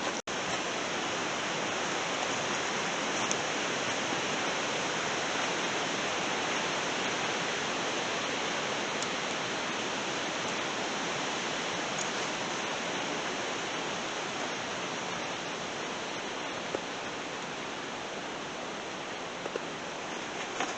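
A steady, even hiss of noise, fading slightly near the end, with a few faint ticks.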